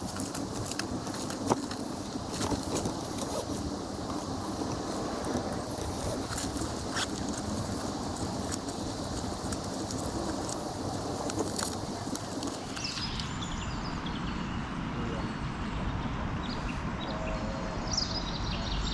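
Steady outdoor background noise with scattered small clicks. After a cut it changes to a quieter open-air ambience with a few short bird chirps.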